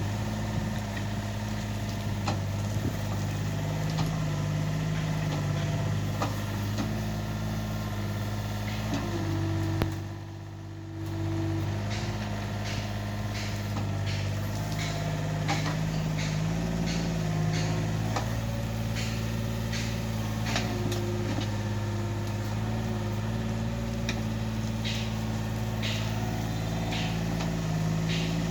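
Yanmar B27 backhoe's diesel engine running steadily while digging, its note stepping up and down every few seconds as the machine works. Frequent sharp clicks and knocks through the second half, with a brief dip in level about ten seconds in.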